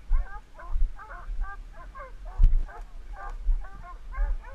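Hunting hounds baying over and over, about two to three calls a second with voices sometimes overlapping, over low thumps on the microphone.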